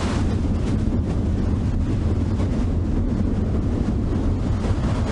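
Strong storm wind buffeting the microphone: a steady, low rumbling noise with small fluctuations.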